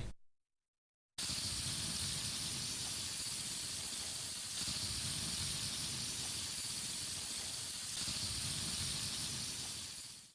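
A steady, even hiss that starts after about a second of silence and fades out near the end.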